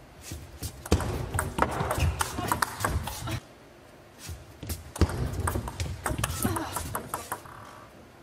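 Table tennis ball clicking sharply off rackets and the table in two short rallies, each mixed with shouts and cheering from players and spectators.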